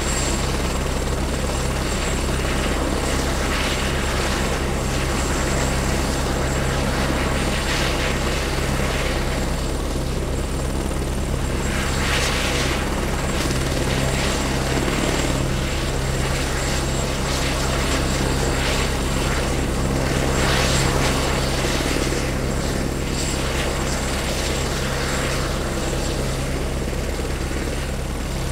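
Helicopter running steadily close by on its landing pad, a continuous engine and rotor sound with a low steady hum. The sound swells briefly about twelve and twenty-one seconds in.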